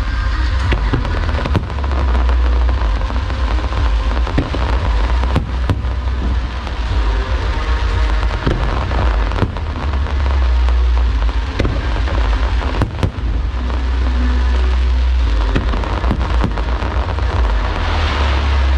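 Aerial fireworks display, shells bursting in quick succession: deep booms that run together into a continuous rumble, with many sharp cracks scattered throughout.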